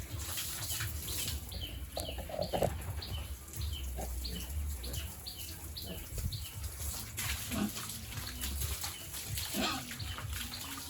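Running water splashing while a pen is washed down, with a small bird chirping rapidly, about three short falling chirps a second, from about 1.5 to 6 seconds in.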